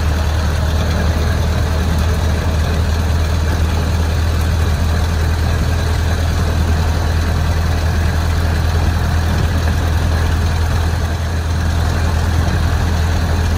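1909 Ford Model T's four-cylinder engine running at a steady speed while the car drives along, a steady low drone under wind and road noise in the open car.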